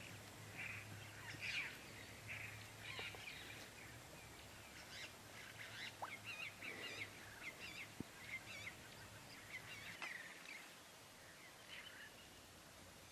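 Faint bird calls: many short chirps and whistles overlapping, busiest in the middle and thinning out near the end, over a faint low hum.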